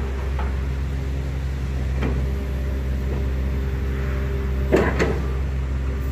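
Volvo EC220DL crawler excavator's diesel engine running steadily as the boom and bucket are worked, with two clunks, a light one about two seconds in and a louder one near five seconds.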